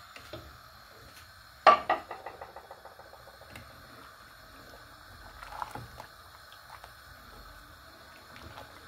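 A sharp clatter about two seconds in that rattles away quickly, then the soft knocks and swishing of a spoon stirring hot milk in a steel pot.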